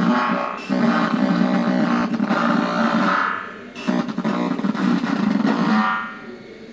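Distorted electronic buzzing drone from a video-and-audio feedback installation, stuttering and dropping out briefly three times, with a higher tone swelling just before the last two dropouts.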